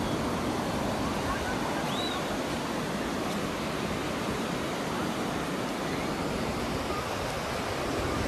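Surf washing in along the shore: a steady rush of breaking waves, with wind rumbling on the microphone.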